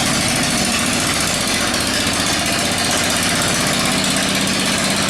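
A small engine running steadily at a constant speed, with an even hum.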